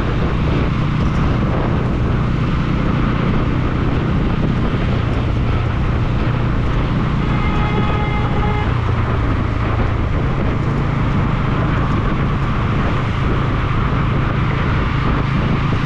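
Motorcycle engine running steadily under way, with continuous road noise, on a ride through city traffic. About halfway through, a vehicle horn sounds once for about a second and a half.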